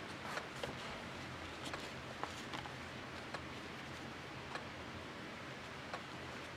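Faint, irregular light clicks and rustling as rubber-gloved hands sift through potting soil and handle freshly dug potatoes, over a steady low hum.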